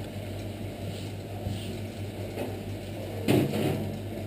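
Pasta machine rolling a sheet of pasta dough over a steady low hum, with a short louder clatter about three seconds in.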